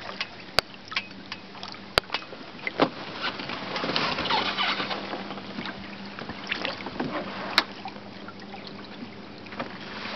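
Water splashing and rushing along the hull of a WindRider sailboat under sail in choppy water, swelling about four to five seconds in. A few sharp clicks are mixed in.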